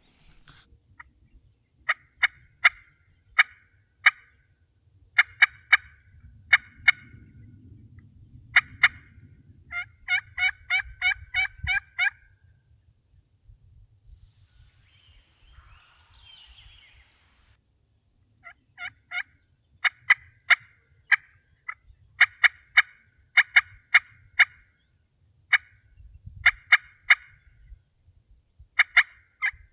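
Hunter's turkey call imitating a hen: sharp single clucks and fast runs of yelps and cutting at about six notes a second, in several loud bursts separated by pauses, used to call gobblers in.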